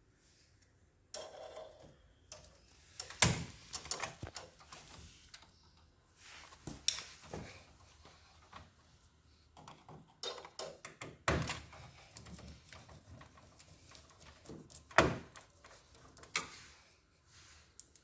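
Irregular clicks and knocks of parts and hand tools being handled while a copier's drive gear assembly is put back together, with a few sharper knocks spread through and quiet gaps between.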